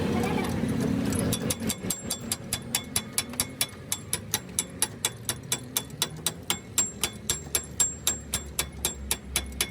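Rapid, evenly paced hammering on metal, about four ringing strikes a second, starting a little over a second in, as in roadside work on a truck's broken leaf spring. A low engine rumble fades out at the start.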